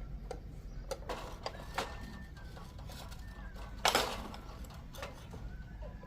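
Chickens calling faintly, with scattered clicks and knocks; the loudest knock comes about four seconds in.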